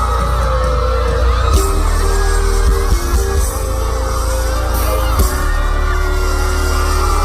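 K-pop music played loud through a concert PA system during a sound check, with heavy bass and sustained synth-like tones; the crowd whoops and yells over it.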